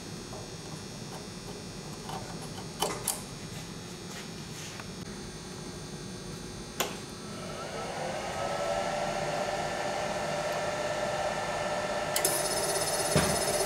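A few clicks as cables are plugged in, then a Sanyo Denki 64BM180LXUL9 spindle servo motor and its drive start up: an electric whine that bends up slightly about seven seconds in and then holds steady, growing louder, with higher whine tones joining near the end.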